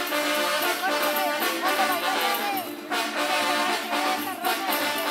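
Brass band playing a melodic dance tune for the Kurpites dance, its wavering lead line broken by short pauses between phrases about three seconds in and again after four seconds.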